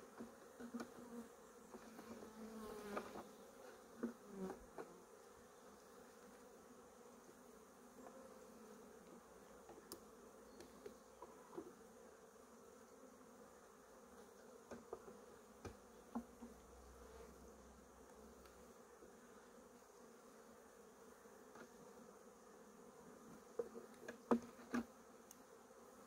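Honeybees buzzing steadily around an opened hive, a low even hum. Scattered knocks and clicks come and go over it, the loudest pair a little before the end.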